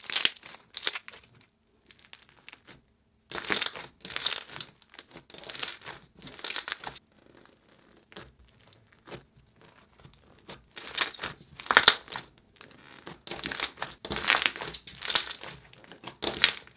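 Glossy slime packed with foam chip pieces being squeezed and pressed by hand, making bursts of wet crackling and bubble popping, with a quieter stretch around the middle.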